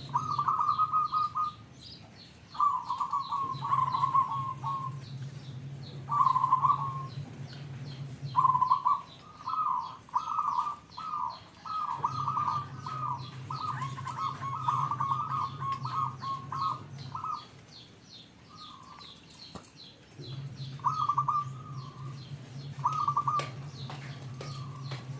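Zebra dove (perkutut) singing: bursts of rapid trilled cooing notes, phrase after phrase with short pauses between. Small birds chirp high in the background.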